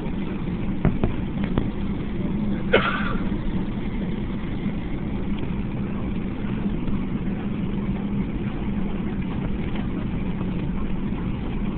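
Boeing 757 cabin noise while taxiing: a steady engine drone with a low hum. A few light knocks come about a second in, and a short sharp sound comes just under three seconds in.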